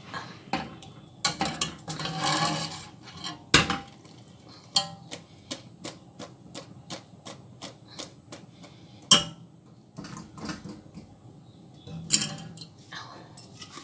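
Wire skimmer clinking and tapping against stainless-steel pots and a metal colander as crisp fried zalabia dough balls are scooped up and tipped out. There is a run of light taps about three a second in the middle and a few sharper knocks.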